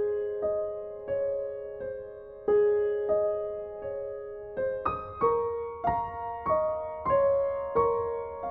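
Background piano music: a slow, gentle melody of single struck notes, each ringing out and fading, about one every half second or so.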